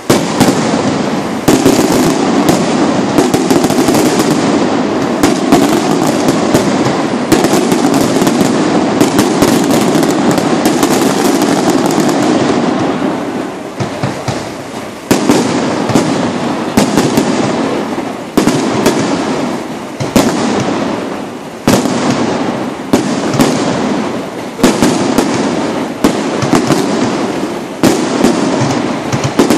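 Fireworks display. A dense, continuous crackling runs for about the first half, then gives way to separate loud bangs every second or two, each followed by fading crackle.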